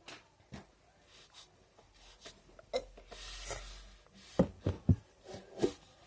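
Scattered soft clicks and rubbing, then a quick run of low thumps in the second half.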